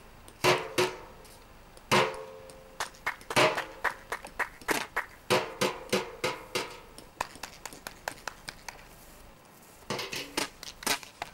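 Sharp knocks of a wooden stick, a few at first, then an irregular run of several a second, a lull, and a short quick cluster near the end; some knocks have a hollow ring.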